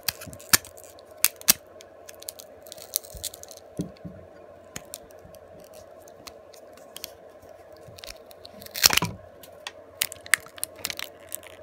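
Metal hand tools clicking and scraping against a MiFi hotspot's plastic case and circuit board as it is pried apart, with a louder crunching scrape about nine seconds in. A faint steady hum runs underneath.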